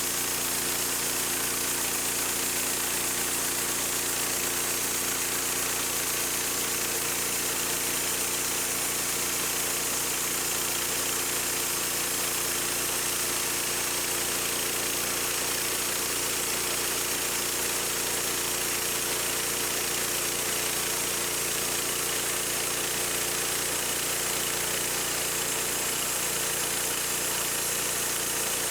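Engine of a home-built sawmill running steadily at constant speed, an even hum with no change in pitch.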